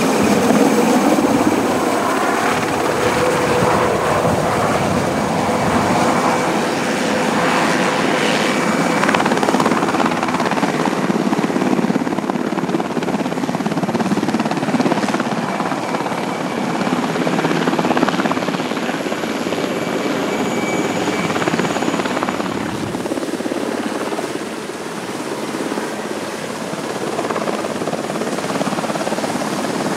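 Military helicopter's turbine engines and rotor running, a loud, steady noise with a faint high whine.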